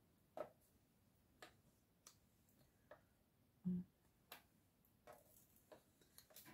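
Faint, scattered clicks and taps of paper die-cut flowers and embellishments being handled and pressed onto a card, with one soft, louder thump a little past the middle.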